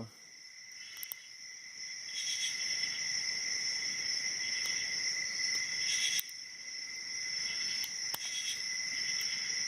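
Crickets trilling steadily in the background, with a few faint metallic clicks from a hook pick and tension wrench working the pins of a padlock.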